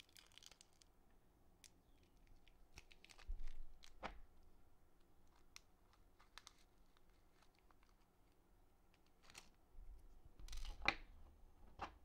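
Faint, scattered small clicks and scratches of plastic Cherry-style keyboard stabilizers and small screws being handled and fitted to a number pad's circuit board, with a few louder clicks about four seconds in and near the end.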